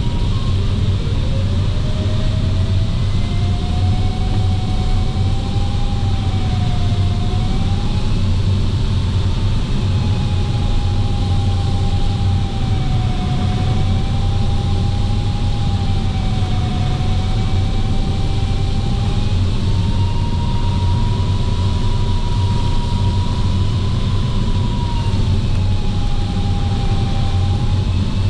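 Steady rush of air and a low engine drone inside a glider cockpit on aerotow behind a Piper Pawnee tow plane. Over it runs a variometer's audio tone that rises in pitch in the first couple of seconds as the climb begins, then wavers slowly up and down with the rate of climb.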